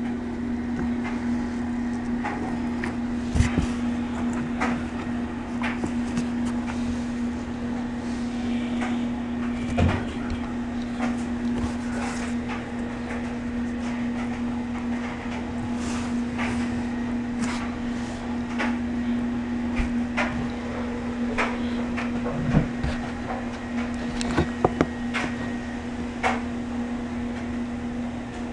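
A steady low hum from a running household appliance, with scattered light clicks and knocks, the loudest a few sharp taps about 3 and 10 seconds in and a cluster near 22 to 25 seconds.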